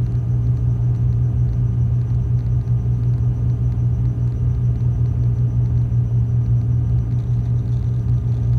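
Cessna 310's twin piston engines droning steadily as heard inside the cabin, a deep even hum with no change in pitch.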